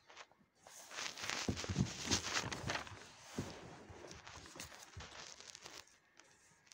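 Paper rustling as textbook pages are turned and a paper cutout is handled. It is loudest for a couple of seconds about a second in, then goes on as lighter crinkling.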